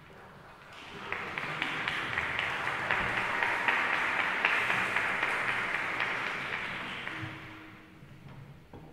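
Audience applauding in a concert hall, swelling about a second in and dying away near the end.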